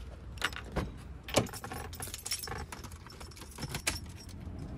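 Car keys jangling, with a few sharp clicks and knocks as the driver's door of a 1994 BMW 525i (E34) is opened and someone climbs into the seat.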